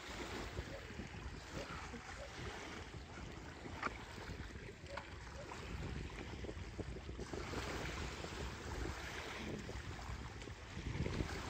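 Small waves lapping on a pebble lake shore with wind on the microphone, and a few light splashes and knocks from a kayak paddle as an inflatable kayak is pushed off and paddled away.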